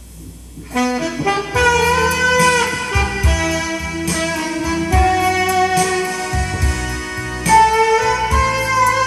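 Saxophone playing a slow ballad melody over keyboard backing with bass and a drum beat; the music starts about a second in.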